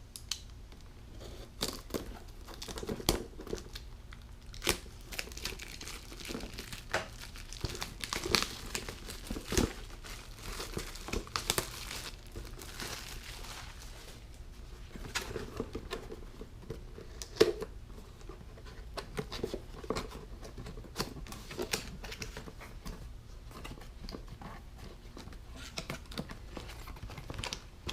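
Packaging of a drink holder kit crinkling and tearing as it is opened and emptied, with scattered light clicks and knocks of the parts being handled.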